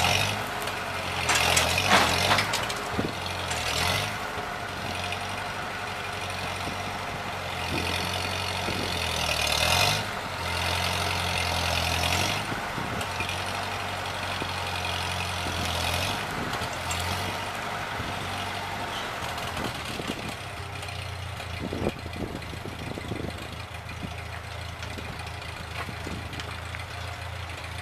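1948 Ford 8N tractor's four-cylinder flathead engine working hard as a palm stump is wrenched out by chain in the first few seconds. It keeps running with a few louder surges, then settles to a quieter, steady idle over roughly the last eight seconds.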